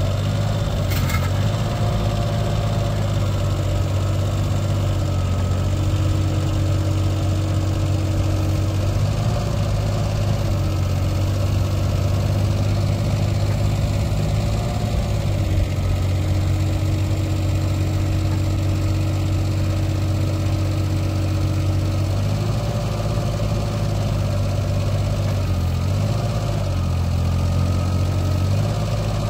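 Yanmar Super ViO20 mini excavator's diesel engine running steadily, its note shifting at times as the hydraulic boom, arm and bucket are worked.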